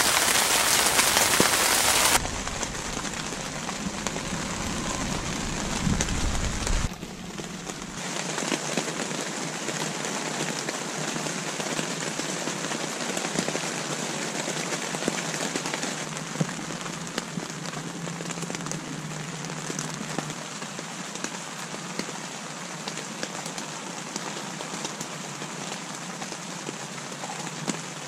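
Rain falling on a tent's fabric: a steady, dense hiss of many fine drop ticks. A louder rush in the first two seconds cuts off suddenly.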